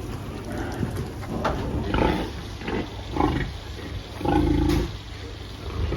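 Pigs grunting: several short calls, the loudest and longest a little past the middle.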